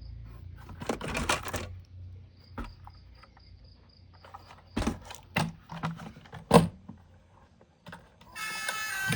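Plastic toy vehicles and their packaging being handled, with a rattling run of clicks about a second in and then scattered sharp clicks and knocks, the loudest about six and a half seconds in. Music starts near the end.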